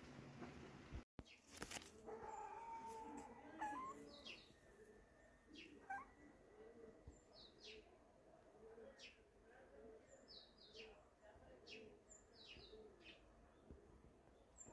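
Faint outdoor ambience with small birds chirping: short, high chirps repeating every second or so.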